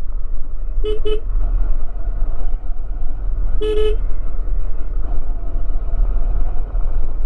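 Motorcycle horn beeping: two quick beeps about a second in, then a longer beep a little under four seconds in, over the motorcycle's steady low running rumble.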